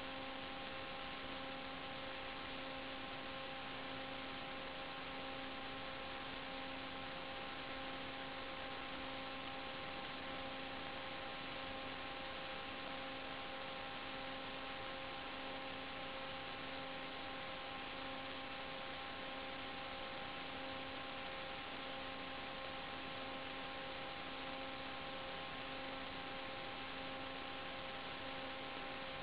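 Steady hiss with a constant electrical hum and a stack of unwavering whine tones, unchanging throughout: the static of an analog FPV video link's audio channel.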